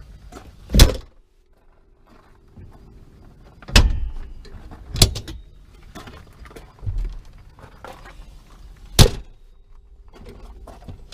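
Polaris Slingshot hood latches clicking as they are snapped shut and released: five sharp, separate clacks spread over several seconds, the first the loudest, with one duller thump near the middle.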